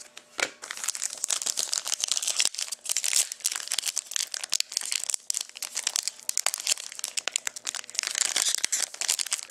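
Wrapper of a Panini Contenders hockey card pack being crinkled and torn open, an irregular crackle of plastic with a sharp snap about half a second in.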